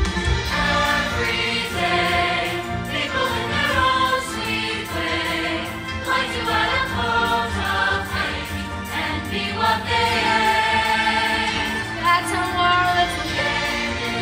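Live stage musical number: a cast singing together as a choir over accompaniment music, filling the theatre.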